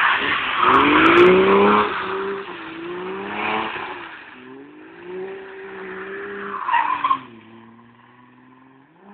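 BMW E30 coupe drifting: its tyres screech over the engine revving up and down, with the loudest screech in the first two seconds and further bursts about three and a half and seven seconds in. After the last screech the engine settles to a steadier, lower note and dies away as the car drives off.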